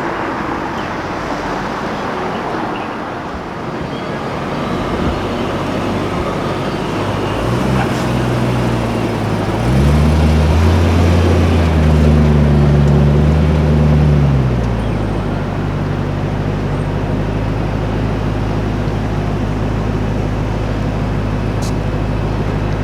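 Street traffic noise, then a car engine climbs in pitch, holds at high revs for about four seconds and drops back to a steady low hum.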